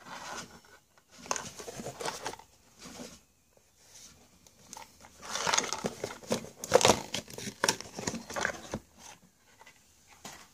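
A cardboard toy box with a clear plastic window being handled and opened: irregular rustling, crinkling and clicks of the packaging, busiest and loudest in the middle, dying down near the end as the toy mouse is taken out.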